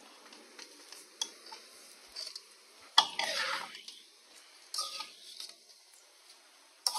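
A long metal spoon stirring rice in a metal pot, scraping and clinking against the pot, with the loudest scrapes about three and five seconds in and a sharp clink near the end.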